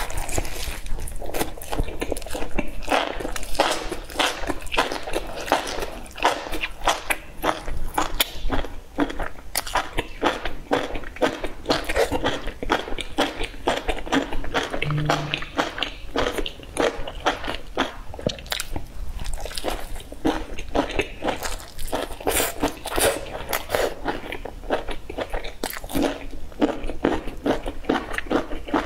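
A person biting and chewing a flatbread sandwich stuffed with cabbage, enoki mushrooms and sausage. The chewing gives many short, sharp clicks and crunches, several a second.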